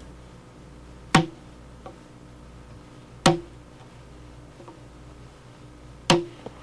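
Mallet striking a wood chisel held on the scribe line of a log, scoring the line for a square notch. There are three sharp knocks about two seconds apart, each with a brief ring.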